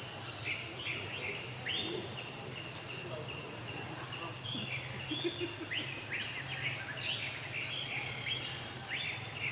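Many short, high chirping calls from animals, coming in quick runs throughout, over a steady low hum.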